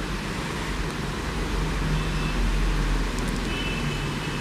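Steady low hum and hiss of background room noise, with a faint thin high tone near the end.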